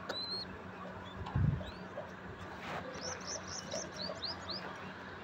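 Bird chirping: a few high chirps, then a quick run of about eight short, rising chirps in the last couple of seconds. A dull thump about a second and a half in is the loudest sound.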